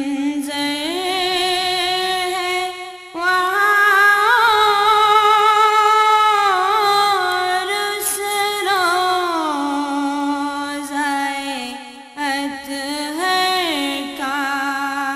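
A single voice singing a naat in long held notes with wavering, sliding ornaments. It breaks off briefly about three seconds in, comes back louder, and pauses again near twelve seconds.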